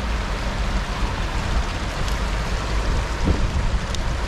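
Swift river water rushing steadily.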